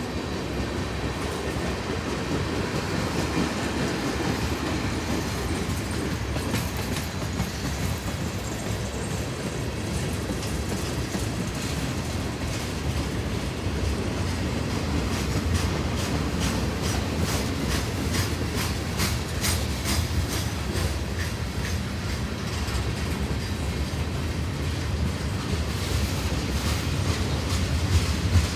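CSX freight train rolling past: a steady rumble of cars on the rails, with wheels clacking over rail joints in quick runs through the second half.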